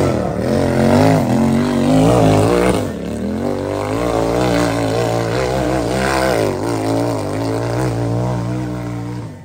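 Side-by-side UTV engine revving hard and unevenly, its pitch rising and falling over and over as it is throttled up a rough trail climb. The sound cuts off suddenly at the end.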